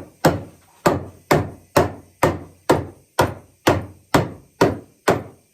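Hammer blows on wood, an even run of about eleven sharp strikes at roughly two a second, driving the wooden parts of a rocking chair together.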